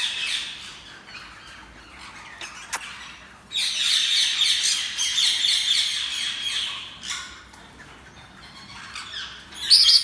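Sun conure chick giving rapid series of short, high, raspy calls while held for a leg ring to be slipped over its foot, calls of a frightened chick fussing at the handling. The calls are loudest from about a third of the way in to two-thirds through, and again just before the end.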